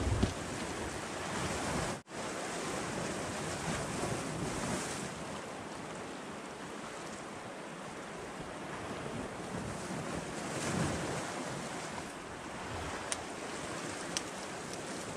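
Sea swell washing and breaking against shore rocks, with wind on the microphone. The sound cuts out for an instant about two seconds in.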